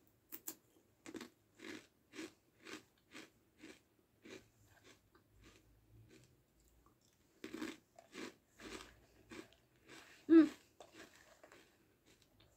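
Crunchy Jagariko potato sticks being bitten and chewed close to the mouth: a steady run of crunches about two a second, a pause, then a second run of chewing, with the loudest crunch about ten seconds in.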